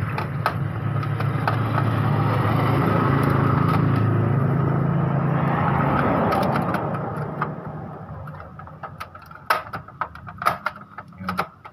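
A steady engine drone that fades away about seven seconds in. After it come a series of sharp plastic clicks and knocks from printer parts being fitted by hand.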